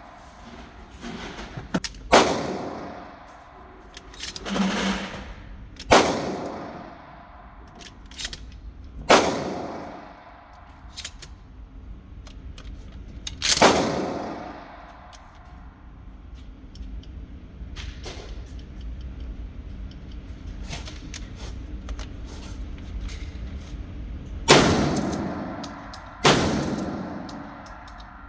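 Pump-action shotgun firing: about seven loud shots a few seconds apart, each followed by a ringing echo, with a lull of about ten seconds midway and fainter sharp reports in between.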